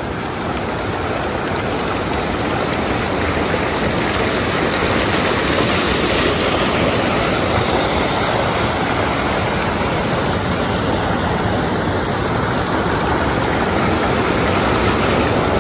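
River water rushing steadily, a loud, even noise of flowing water.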